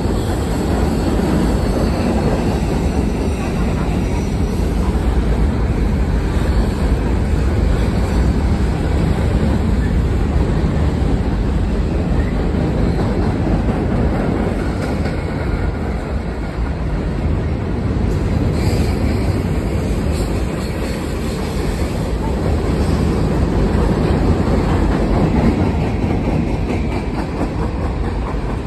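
Norfolk Southern mixed freight train's cars rolling across a steel girder bridge: a loud, steady rumble of wheels on rail that goes on without a break.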